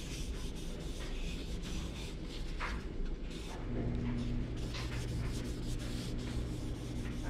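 A cloth rag rubbing over an oiled cherry-wood spoon, wiping off the excess mineral oil: a soft, scratchy rubbing with light strokes. About halfway in, a low steady hum starts.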